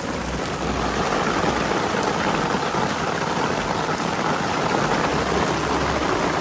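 Heavy rain coming down hard, a dense, steady hiss of drops pelting a surface.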